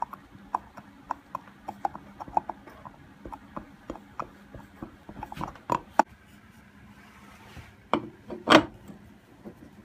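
Screwdriver driving a wood screw through a metal lathe faceplate into a wooden bowl blank: a run of small irregular clicks and creaks, about two a second. Near the end comes a louder, longer scraping rub.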